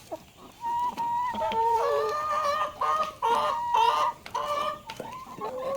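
A flock of chickens clucking and calling, several birds at once, in overlapping stretches of held and stepping calls.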